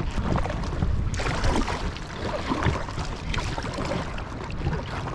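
Packraft being paddled across choppy water: water splashing and slapping close to the microphone with paddle strokes, over a low rumble of wind on the mic.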